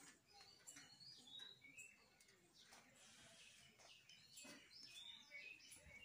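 Faint bird chirping: many short, high chirps and tweets, with a few soft clicks among them.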